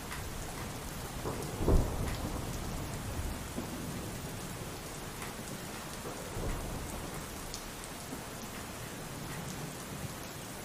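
Pouring rain falling steadily, with a short, loud thunderclap about two seconds in.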